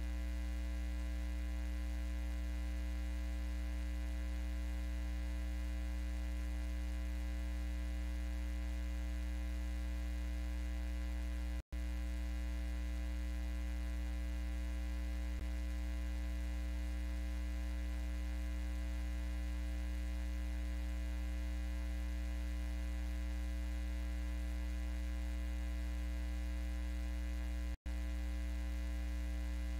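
Steady electrical mains hum with many overtones, unchanging in pitch and level, cutting out completely for an instant twice, about twelve seconds in and again near the end.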